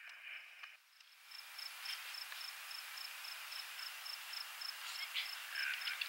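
Insects chirping: a high chirp repeated steadily about four times a second over a faint outdoor hiss, with a few short louder sounds near the end.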